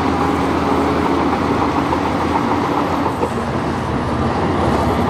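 Bulldozer engine running steadily: a dense, even noise over a low hum.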